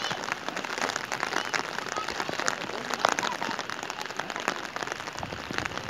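Steady rain falling and pattering, with many close, sharp drop hits.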